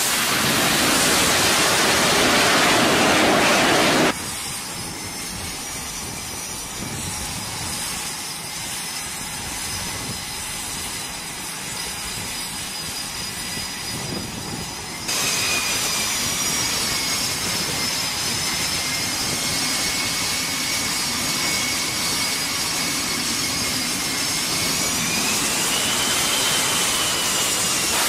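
F/A-18 Super Hornet twin jet engines on a carrier deck. A loud, even roar runs for about four seconds as a jet lands. It then cuts to a steadier turbine whine over a hiss, which gets louder after a second cut about halfway through and rises in pitch near the end as the jet sits on the catapult.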